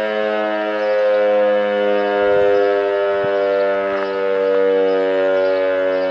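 VEM DS977 electromechanical civil-defence siren sounding a steady tone with many overtones, its loudness swelling and easing slightly.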